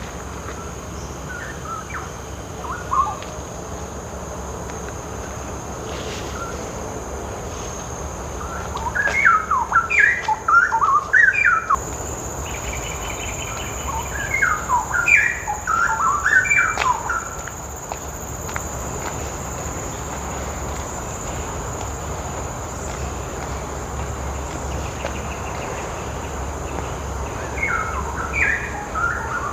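A bird singing in three bursts of quick, varied chirping notes: about nine seconds in, about fourteen seconds in, and near the end. Under it runs a steady high insect drone.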